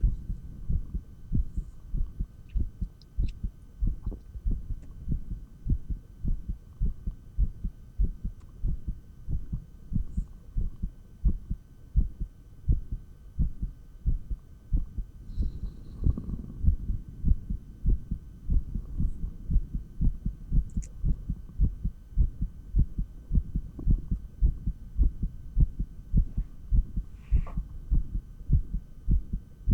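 A person's heartbeat heard through an electronic stethoscope: a quick, steady run of low thuds, the heart beating fast during dumbbell exercise.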